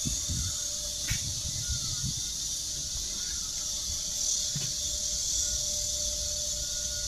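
Outdoor ambience: a steady high hiss with uneven low rumble from wind on the microphone, a few faint short squeaks and a single click about a second in.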